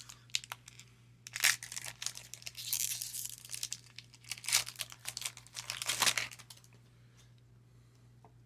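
Crinkling and tearing of a trading-card pack wrapper as baseball cards are handled, in irregular rustling bursts with sharp crackles from about a second in until about six and a half seconds.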